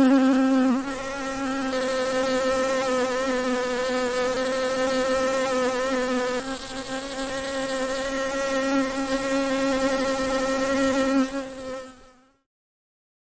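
Steady buzzing of a large bee's wings, a low drone with a steady pitch that fades out near the end.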